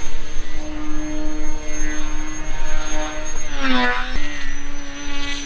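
Electric motor and propeller of a QTmodel Kitfox RC model plane in flight: a steady whine. About three and a half seconds in, its pitch slides down, then it settles to a steady, slightly lower tone.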